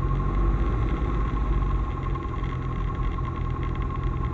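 Single-engine light aircraft's piston engine idling steadily, heard from inside the cabin, with a steady high whine over the engine note.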